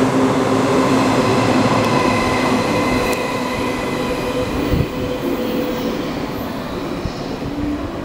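A JR 185 series six-car electric train running through a station at speed: the rolling noise of its last cars rushing past, then fading steadily as it moves away.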